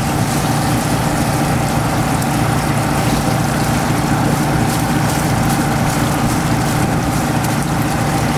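Gold dredge's engine-driven water pump running steadily. Water from a garden hose splashes into a plastic tub as concentrates are washed down.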